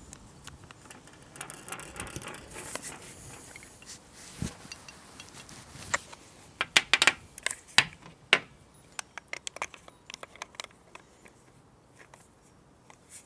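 Metal fittings of a pressure washer trigger gun clicking and clinking as they are handled and screwed in, with a quick run of sharp clicks about six to eight seconds in and lighter scattered clicks after.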